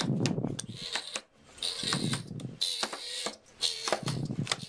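Baby skunk stomping its feet on newspaper, the stomp of an upset skunk: short bouts of thuds about every two seconds among many quick clicks and rustles of paper.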